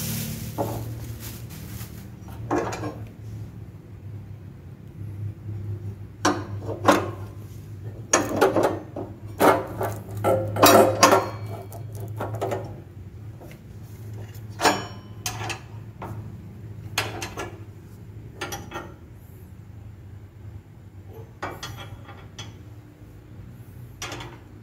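Metal parts of a new gas stove being handled and set down: irregular clinks and knocks, busiest and loudest in the middle, over a steady low hum.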